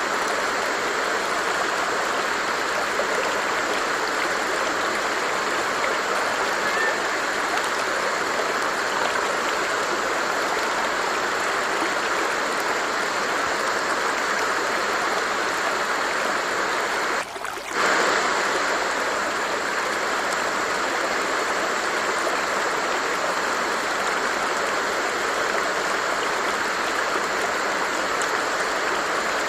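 Stream of water flowing steadily, an even rushing and babbling. The sound briefly dips for about half a second a little past the middle, then carries on as before.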